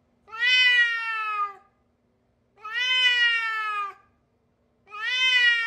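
A cat meowing: two long, drawn-out meows, each sliding down in pitch at the end, then a third beginning near the end.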